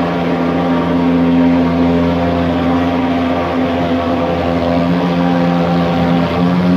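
Handheld thermal fogging machine's pulse-jet engine running with a steady, loud buzzing drone as it spews insecticide fog. Its pitch shifts slightly about six seconds in.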